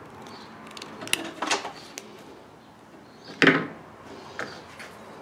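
Hand tools handled on a wooden workbench: a few sharp clicks from a wire stripper working on insulated wire, then a louder knock about three and a half seconds in as a tool is set down on the wooden plank.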